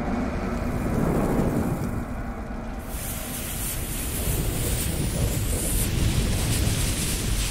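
Rumbling, hissing fire-and-fuse sound effects of an animated logo intro: a deep steady rumble with crackling hiss that grows brighter about three seconds in as the flames spread.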